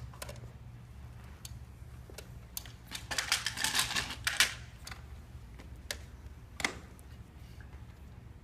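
Scattered sharp clicks of metal parts being handled, with a denser clattering rattle from about three to four and a half seconds in, as a FreeWheel front-wheel attachment for a wheelchair is picked up and set in place. A steady low hum runs underneath.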